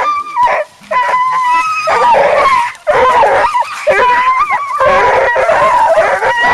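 A pack of coon-hunting hounds barking, bawling and whining over one another in excited, nearly continuous bursts, with a few short breaks.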